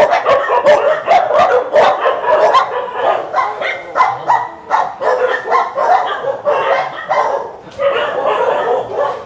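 Many kennelled dogs barking at once, a loud, continuous chorus of overlapping barks and yips.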